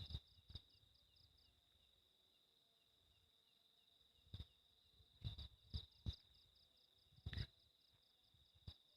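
Crickets chirping steadily at a high pitch, one band pulsing several times a second. A handful of short, soft bumps or rustles come in the second half.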